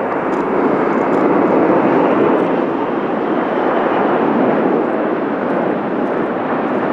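Jet airliner engines running, a loud, steady rush of noise that swells slightly about two seconds in.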